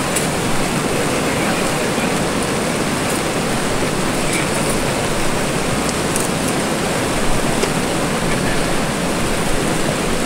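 Steady rush of flowing river water, with a few faint ticks over it.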